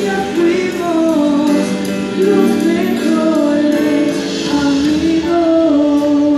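A teenage boy singing a slow melody into a handheld microphone, amplified through a PA. Near the end he holds one long note.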